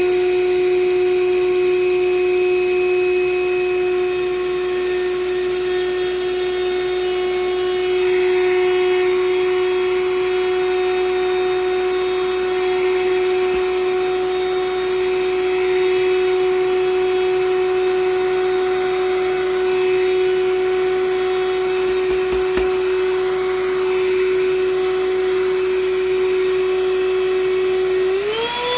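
Black & Decker Dustbuster cordless handheld vacuum running at a steady pitch with a rushing of air as it sucks up flour. Near the end its motor pitch steps up quickly and holds higher.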